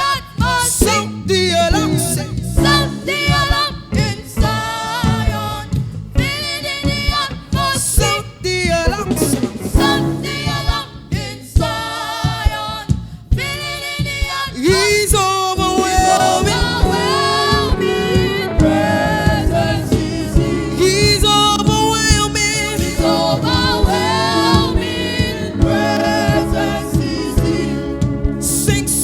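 Live gospel singing by a vocal group, with instrumental backing and a steady drum beat.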